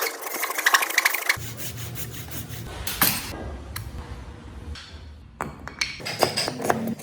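A woodworking machine chatters rapidly against wood and stops about a second and a half in. After that comes a low hum with a few sharp wooden knocks, and a cluster of clicks and knocks near the end.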